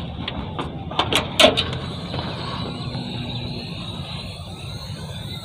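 The air-assisted bonnet of an Agri Master 1604 tractor being opened. A few sharp clicks and knocks about a second in as it is released, then a faint thin rising whine while it lifts.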